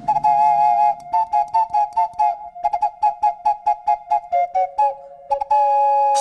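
Ocarina playing a fast melody of short, clear notes, ending on one longer held note near the end.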